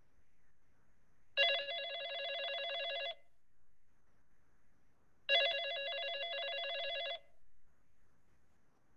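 A telephone ringing twice. Each ring is a rapidly trilling electronic warble lasting a little under two seconds, with a pause of about two seconds between the rings.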